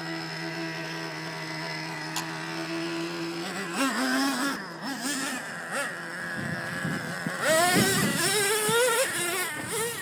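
Radio-controlled truck's motor running at a steady pitch, then revving up and down repeatedly as the truck drives over dirt. It is loudest in a rising rev about two-thirds of the way in.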